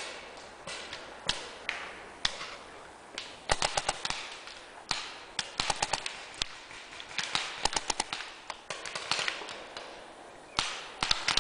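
Paintball markers firing: scattered single sharp pops and several quick strings of shots, each string several pops in under a second.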